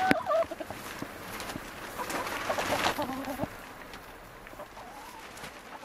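Domestic hens clucking: short calls right at the start and again about two to three seconds in, with a few sharp knocks among them.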